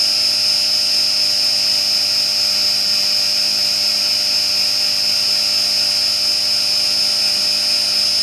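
Novakon Torus Pro CNC mill spindle running steadily at 6,000 RPM with a high, even whine, over a constant hiss of the air blast that clears chips as a tiny Harvey Tool end mill widens slots.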